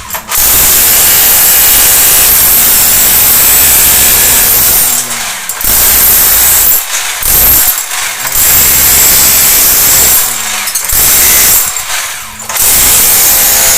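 Power tool running loud in about six bursts of one to five seconds with short pauses between, during work to redo a leaking bathroom plumbing job.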